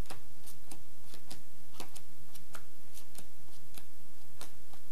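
Playing cards dealt one at a time from a deck onto a felt table, a string of short, sharp clicks at an uneven pace of about three a second, over a steady hiss.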